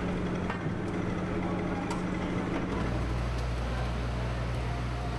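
Steady low machinery hum aboard a ship, with a few faint clicks. The hum changes to a deeper pitch about three seconds in.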